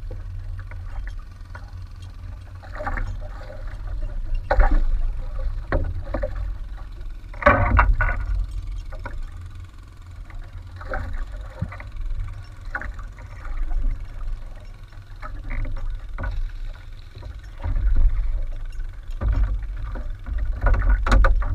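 Sea water slapping and splashing against the hull and outriggers of a small drifting outrigger boat in irregular surges, over a steady low wind rumble.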